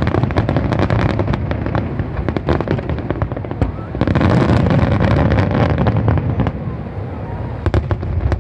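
Aerial fireworks display: a rapid barrage of shell bursts, bangs and crackling overlapping one another. It is densest from about four to six and a half seconds in, then thins out, with a few sharp reports near the end.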